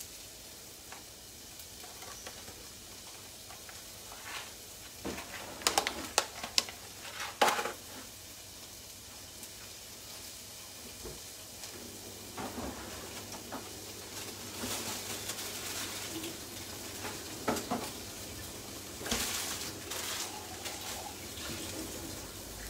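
Thinly sliced onions sizzling steadily in hot oil in a frying pan. A few sharp clicks and knocks stand out about five to eight seconds in, and again a couple of times later.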